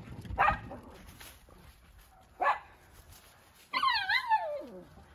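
Cavalier King Charles Spaniels barking: two short, separate barks, then a longer wavering cry that falls in pitch near the end.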